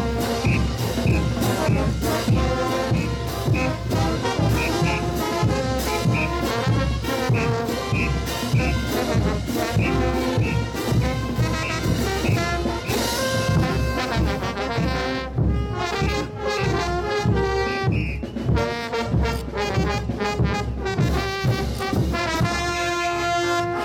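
Brass band playing a morenada, trumpets and trombones carrying the tune over a steady drum beat.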